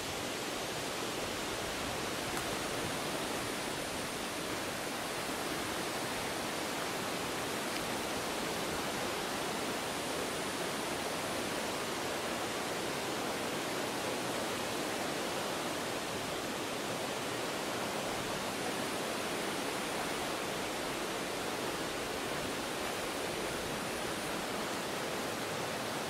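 Mountain stream water rushing steadily, an even, unbroken noise without any distinct splashes.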